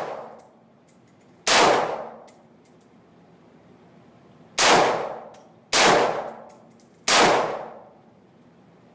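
Four loud, sharp impacts, each ringing out and fading within about a second: one about a second and a half in, then three close together from the middle to near the end.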